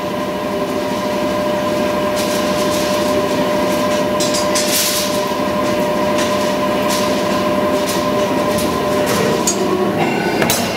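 Simco CSC-5160N CNC spring coiler running as it feeds and bends wire into a spiral spring: a steady machine whine with scattered mechanical clicks. The whine drops away near the end.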